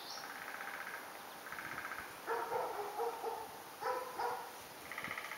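Eskimo dog puppy giving a series of short whines and yips, about five in all, spread over a few seconds.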